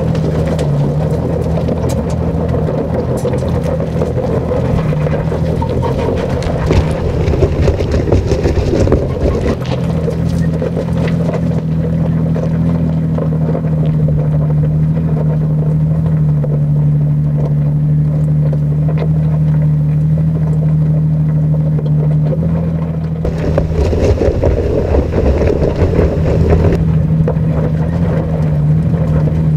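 2020 Toyota 4Runner TRD Pro's 4.0-litre V6 running steadily under load as it climbs a gravel and rock trail, holding one even pitch. Tyres crunch over loose gravel and stones, most in the first third and again for a few seconds near the end.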